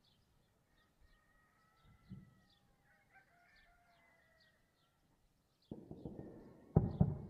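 A rooster crows faintly, with faint repeated chirps above it. Near the end, a sudden loud rushing noise starts, and two heavy bangs follow close together.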